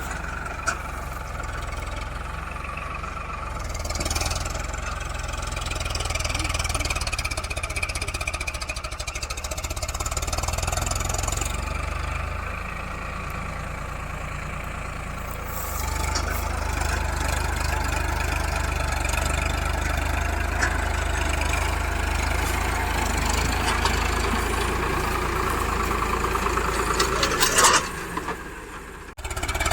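Farmtrac 6055 tractor's diesel engine running steadily while working, getting stronger about halfway through.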